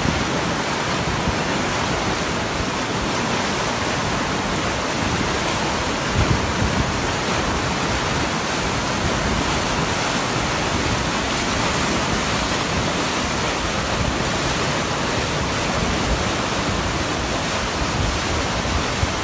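Muddy floodwater rushing through a swollen river. Its churning standing waves make a steady, loud roar of rushing water.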